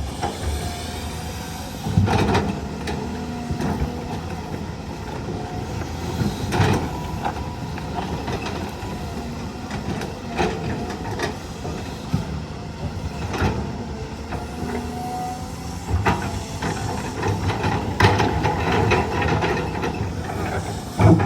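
Heavy diesel engines running steadily, with scattered metallic knocks and clanks every few seconds.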